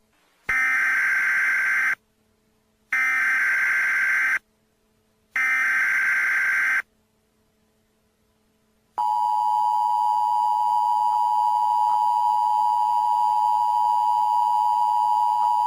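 Emergency Alert System SAME header: three screeching data bursts, each about a second and a half long with a short silence between them. After a pause of about two seconds, the two-tone EAS attention signal starts about nine seconds in and holds steady.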